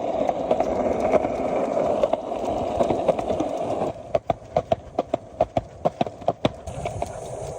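A steady rushing noise for about four seconds, then footsteps on a hard surface, about three steps a second, which stop about a second before the end.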